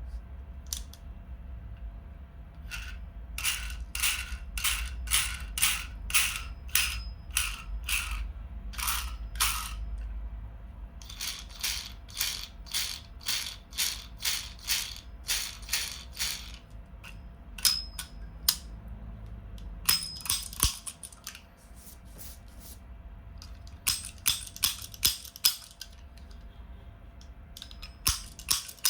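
Toy revolver's mechanism clicking in runs of sharp, evenly spaced clicks, about two a second, with short pauses between the runs.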